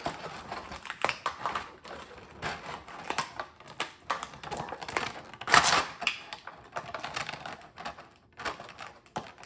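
Plastic toy packaging being handled: irregular clicks, taps and crinkles as an action figure's machete accessory is worked free, with one louder crackle a little past the middle.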